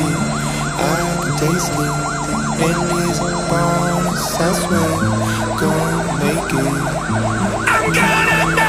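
Fire truck sirens at an emergency scene. One siren is on a fast yelp, sweeping up and down in pitch many times a second, while a second siren's wail winds slowly down in pitch. Near the end a steadier, higher siren or horn tone cuts in.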